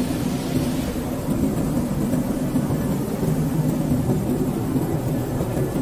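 Potato processing line machinery running: a steady low hum and rumble from electric gear motors and conveyors.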